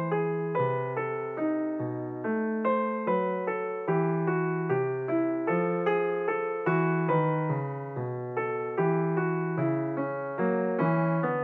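Background piano music: single notes and chords struck about twice a second, each fading before the next.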